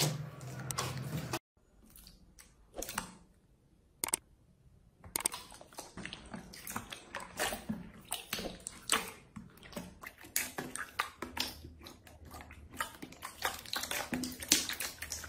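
Hands pressing and kneading slime: wet, sticky squelches and crackly little pops. A brief squeeze of thick slime at the start gives way, after a short dropout, to clear jelly-like slime in a plastic tub, whose pops come thick and fast through the second half.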